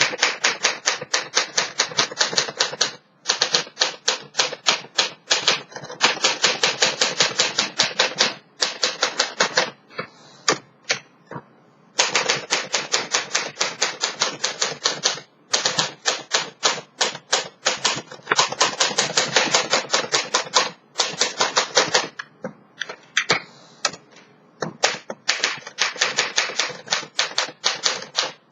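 A 1955 Smith Corona Silent Super manual typewriter being typed on: rapid keystrokes, the typebars striking a newly recovered platen, in runs of a few seconds with short pauses between them.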